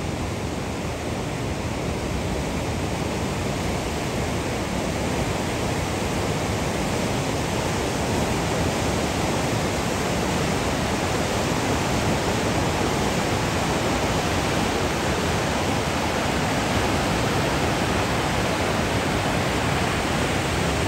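Fast mountain river rushing over boulders in rapids: a steady, even rush of water.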